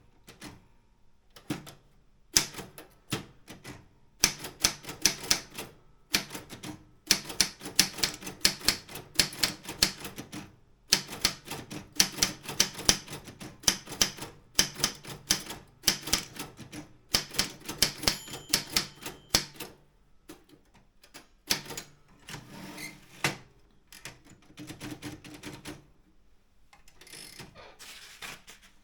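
Optima M16 manual typewriter being typed on: fast runs of sharp keystroke clacks with short pauses between them. Toward the end the strokes become sparser and softer.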